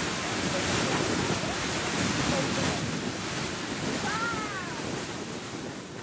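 Beehive Geyser erupting: the steady rushing hiss of its water column jetting from the narrow vent of its geyserite cone.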